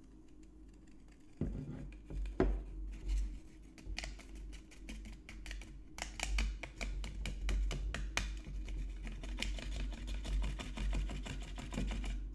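Folded paper of agar powder being tapped and flicked by a finger over a glass bottle's neck, making rapid light ticks as the powder slides in. The ticks are sparse at first and come thick and fast from about halfway through.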